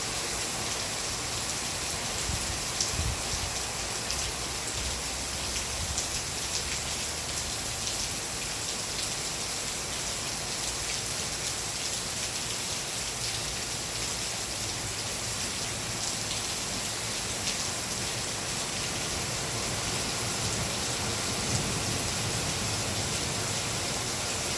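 Steady rainfall with scattered individual drop ticks, over a low rumble that comes and goes.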